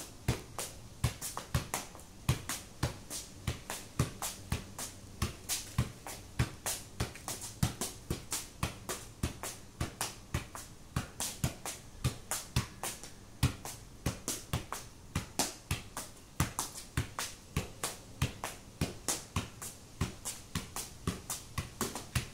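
Football being juggled on the foot: a steady run of thumps as the ball is struck, about three touches a second.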